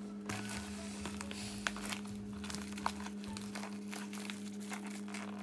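Plastic poly mailer crinkling and crackling as it is pinched, twisted and pulled open by hand, over quiet background music.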